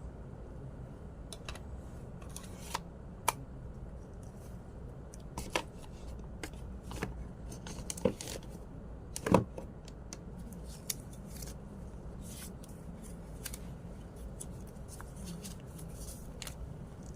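Scattered light clicks and rustles of small objects being handled, with one sharper knock about nine seconds in, over a steady low hum.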